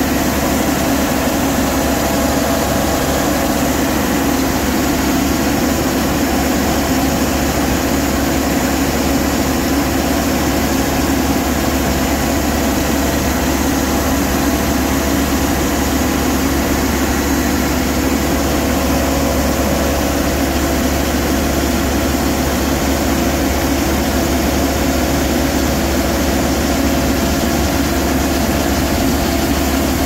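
Vardhman track combine harvester running steadily with its unloading auger engaged, the engine's hum unchanging while threshed paddy grain pours from the spout into a trailer.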